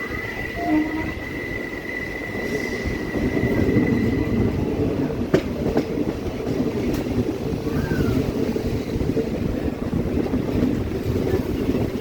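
Passenger train running on the track, heard from aboard: a steady rumble of the coaches, with a thin high whine, typical of wheels squealing on a curve, that stops about four and a half seconds in, and two sharp clicks a little after the middle.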